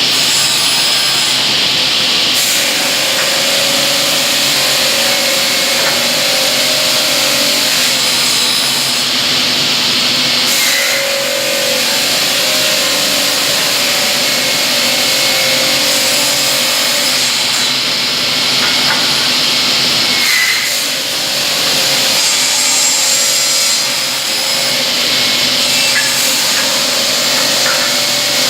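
Pallet slat cutting machine running, sawing wood with a loud, steady noise that dips briefly twice, about ten and twenty seconds in.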